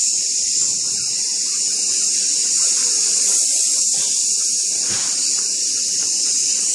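A young boy hissing out one long, steady breath through his teeth. It is a breath-control exercise for singing, in which he holds the hiss out as long as he can.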